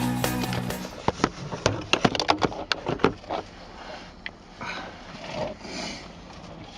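Electronic dance music stops about a second in, followed by a rapid run of sharp clicks and knocks and then softer, scattered handling noises.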